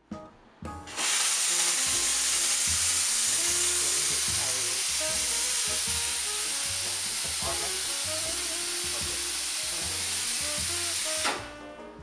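Steam wand of a Unic Zi 3 espresso machine, fitted with a six-hole tip, opened fully and blowing steam into the open air: a loud, even hiss that starts about a second in and stops abruptly near the end.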